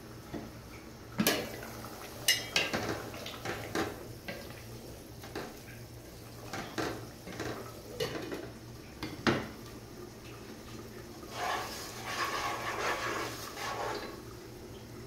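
Cookware clatter: a wooden spatula stirring and scraping semolina frying in ghee in a nonstick pot, with sharp knocks against the pot, and the lid of a steel cooking pot handled with a few clanks.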